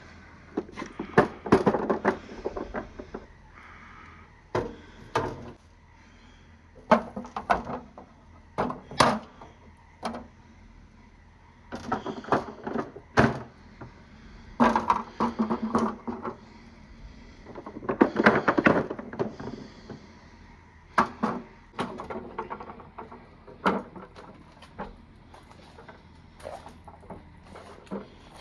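Marbles clattering and knocking against each other and the plastic pipes and gutters of a marble run, in several dense bursts of rapid clicks with short lulls between.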